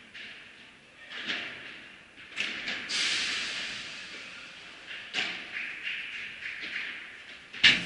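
Padel rally: a string of sharp hits as the ball is struck by the rackets and bounces off the court and glass walls, each with an echoing tail in a large hall, the loudest hit near the end. A longer rushing noise comes about three seconds in.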